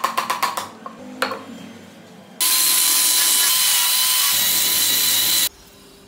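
A quick run of sharp knocks on wood, then one more knock. This is followed by an electric angle grinder with a sanding drum running steadily and high-pitched for about three seconds as it sands a wooden block, cutting off abruptly.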